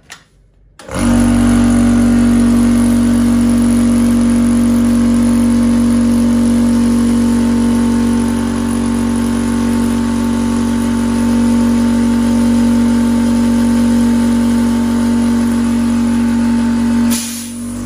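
Electric high-pressure PCP air compressor starting about a second in and running loud and steady, pumping air into a repaired Cricket air-rifle regulator valve toward 150 bar to test whether it holds its set output pressure. A short hiss of air comes near the end as it stops.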